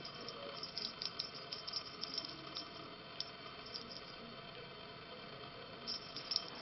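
Light, irregular clicking and rattling from kittens playing with a feather wand toy on a laminate floor, in clusters in the first couple of seconds and again near the end.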